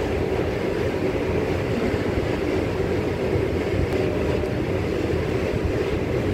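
Steady low rumbling background noise with no distinct knocks, clicks or tones.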